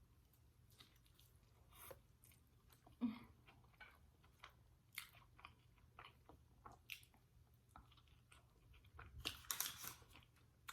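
Faint, close-miked chewing with irregular soft crunches and mouth clicks, eating a burrito with Doritos tortilla chips; the crunching is densest near the end.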